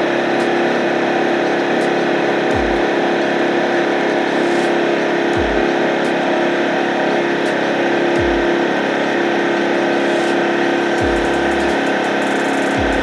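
A motor running steadily, a constant drone with a steady hum and no change in speed.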